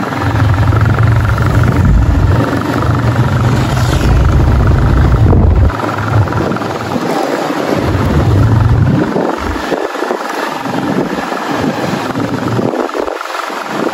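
Wind buffeting the microphone on a moving motorcycle over a steady rush of wind and road noise. The deep buffeting rumble cuts out briefly several times in the second half.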